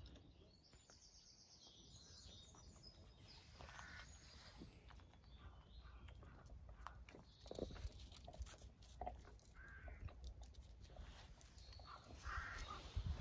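Quiet outdoor ambience with faint birdsong, broken by a few soft taps and scuffles from puppies playing on a stone patio, the loudest about halfway through.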